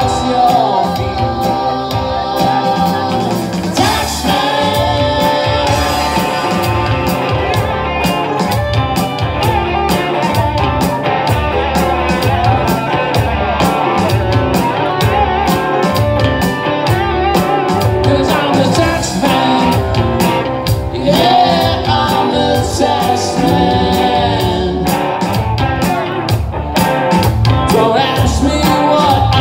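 Live rock band playing electric guitars with lead and harmony vocals over a steady beat.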